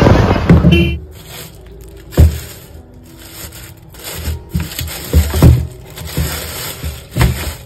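About a second of road traffic noise, then a plastic bag of cut fish being handled in a plastic colander in a steel sink: plastic crinkling with several sharp thumps.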